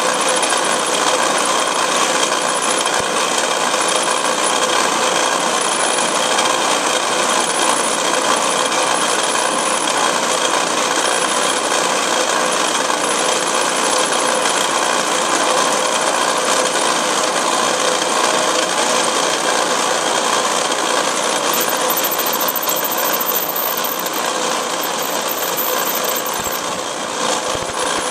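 Lathe running steadily while a twist drill bit held in the tailstock bores into a spinning metal rod, with a constant mechanical noise from motor and cut.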